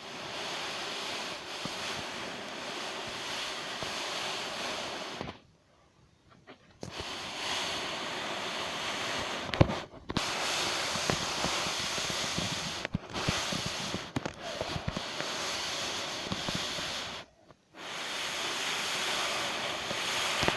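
Airbus A380 jet engines: a steady roar, with wind buffeting the microphone. It cuts out to near silence several times, most clearly for over a second about five seconds in and again near the end.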